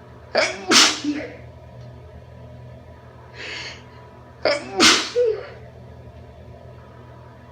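A woman sneezing twice, about four seconds apart. The sneezes are induced, and each is a quick catch followed by a loud burst, with a softer breathy sound shortly before the second.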